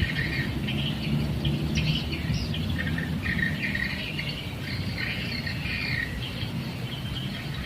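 Birds chirping and chattering in short, irregular bursts over a steady low rumble.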